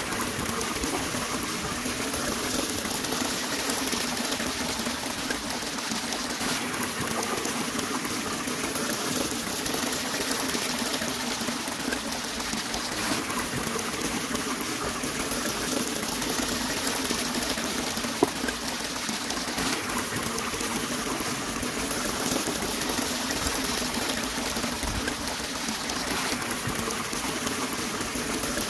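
Steady watery hiss of shallow, muddy water being worked by hands digging in the mud, with one sharp click about eighteen seconds in.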